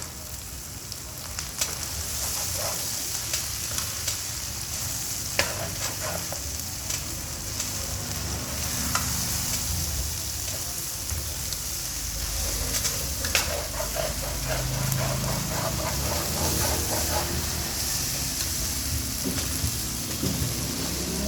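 Yellow noodles stir-frying in a hot pan: steady sizzling, with a utensil clicking and scraping against the pan now and then.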